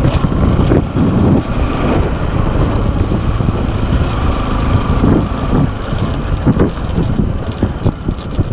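Wind buffeting the microphone on a moving Bajaj Pulsar NS200 motorcycle, with its single-cylinder engine running steadily underneath.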